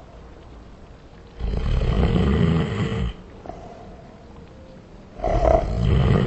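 A person snoring, the recording slowed down with reverb added, so each snore comes out long and deep. Two snores, the second starting just under four seconds after the first.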